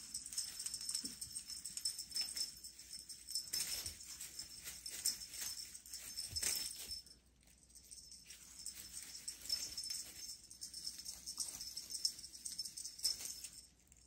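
Cat wand toy with ribbon and foil streamers rustling and crinkling in irregular bursts as a kitten swats and grabs at it, with a lull about halfway through.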